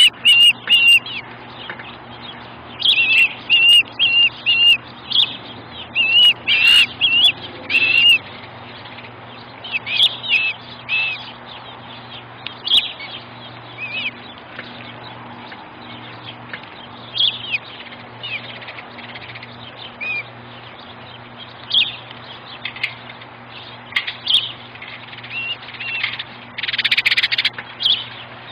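Ospreys calling: short, high whistled chirps, coming in quick runs for the first several seconds and then scattered, with a louder, noisier burst near the end. A faint steady hum sits underneath.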